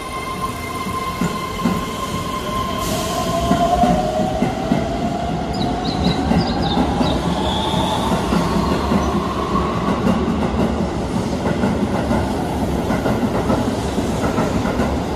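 Keihan 3000-series electric train pulling out of a station and picking up speed. A steady electric tone stops about three seconds in, then the traction motors' whine rises in pitch as the train accelerates, over the wheels rattling and clacking along the rails. There is a brief wheel squeal around the middle.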